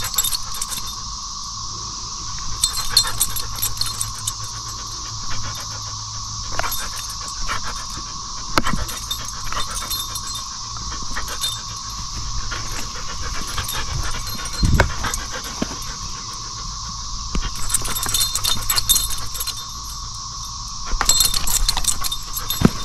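A dog tugging on a rubber squeaky toy: squeaks, jingling and scuffling come in short bursts every few seconds over a steady high-pitched drone.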